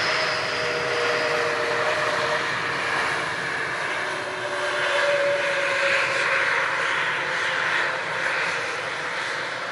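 Landing airliner's jet engines passing by: a steady roar with faint whining tones that drift slightly lower, easing off near the end.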